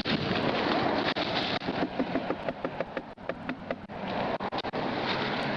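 Rustling, scraping and knocking against a body-worn camera's microphone as the wearer moves through brush and branches, with an uneven rough noise and scattered small knocks.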